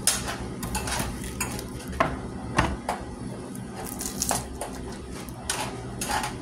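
Chef's knife slicing through a red onion and knocking on a plastic cutting board in irregular taps, over a low steady hum.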